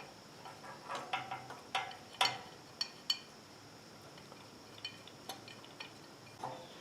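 Scattered light metallic clinks and ticks of small hardware and hand tools being handled during carburetor reassembly on a small engine, with a few sharper ones in the first three seconds and fainter ones later.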